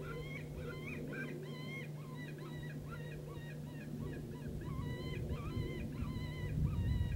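A flock of geese honking, many short calls overlapping, over a steady low hum. A low rumble comes in near the end.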